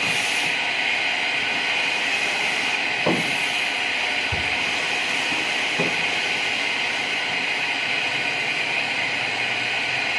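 A steady, loud hissing rush of noise, with a few light knocks about three, four and a half, and six seconds in.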